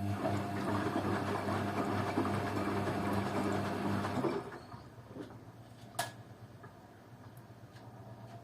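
Beko washing machine's drum turning during the wash: the motor hums steadily while the load swishes round for about four seconds, then the drum stops, with a single click a little later, the pause of a tumble cycle.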